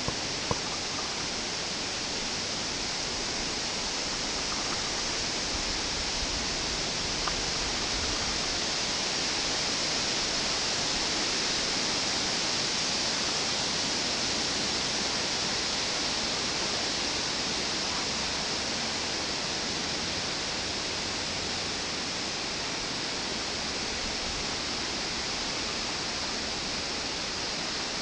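Poplar leaves rustling in a steady breeze overhead: an even, hissing patter much like light rain falling, swelling a little midway.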